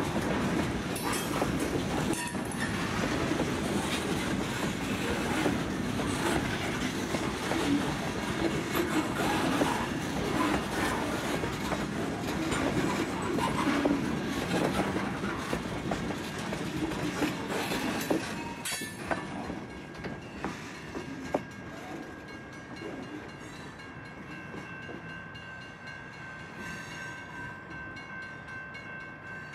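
Freight cars rolling past at close range, their wheels clattering and clicking over the rail joints. A little over halfway through, once the last car has gone by, the sound drops away sharply, leaving a faint steady high tone as the train moves off.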